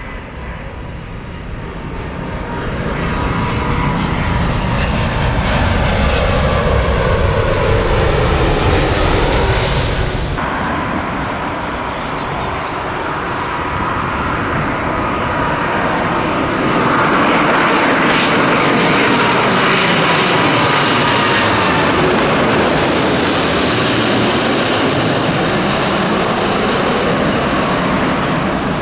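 Jet airliner engines flying past, a loud rumbling roar with a high whine that drops in pitch as the aircraft goes by. About ten seconds in the sound changes abruptly, then a second pass builds to its loudest around the middle.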